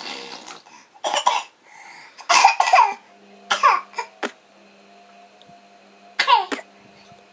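Baby making a string of short, loud, cough-like vocal noises, several sliding down in pitch, with pauses between them.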